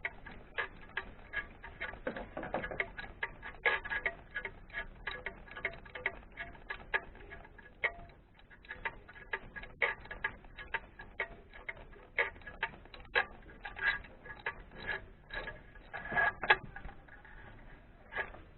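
A run of sharp, irregular metallic clicks, about two to four a second with a busier flurry near the end, from hand tools being worked on the engine during spark plug replacement.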